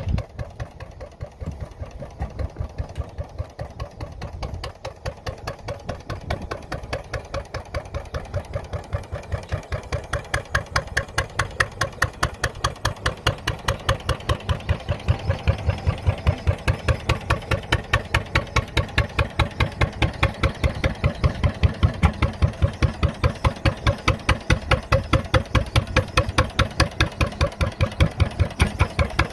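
Arrow C-66 single-cylinder gas engine running at a steady speed, driving an oil-well pumping unit, with an even train of exhaust beats several times a second. It grows louder over the first ten seconds or so.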